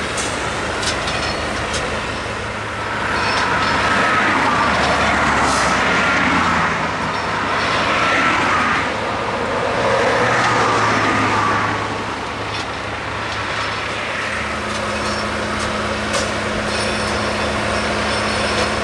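Rail maintenance machinery running: a steady diesel engine hum, with a wavering whine that swells louder for several seconds mid-way and scattered sharp metallic clanks.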